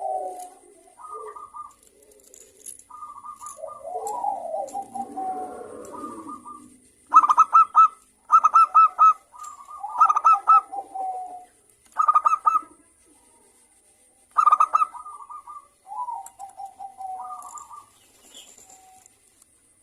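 Zebra doves (perkutut) cooing: repeated phrases of rapid stuttering notes, each ending in a lower drawn-out coo, with calls overlapping in places.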